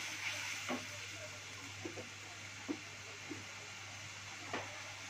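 A wooden spoon knocking and scraping against an aluminium pan several times as a thin paste-thickened gravy is stirred, over a faint steady hiss from the simmering pan.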